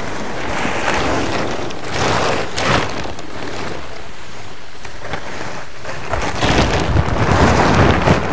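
Wind buffeting the microphone: a rushing, rumbling noise that gets louder and gustier in the last couple of seconds.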